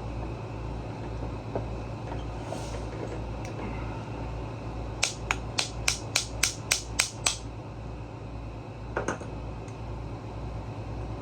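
A quick run of about nine sharp clicks, about three a second, then two more a little later, from hand work on a small-engine carburetor, over a steady low hum.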